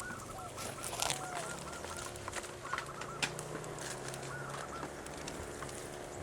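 Bird calls, a rapid run of short repeated notes for the first couple of seconds and a few more after, over a steady droning hum that cuts off suddenly near the end.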